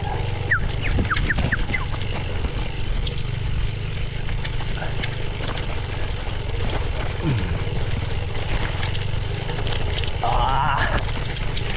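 Mountain bike rolling down a rough, steep road, heard as a steady wind and road rumble on an action camera's microphone. A few short high chirps come in the first two seconds, and a brief higher-pitched sound about ten seconds in.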